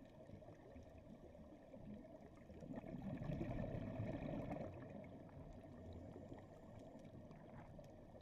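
Faint, muffled underwater ambience picked up by a dive camera, swelling into a louder stretch of bubbly water noise from about two and a half to four and a half seconds in.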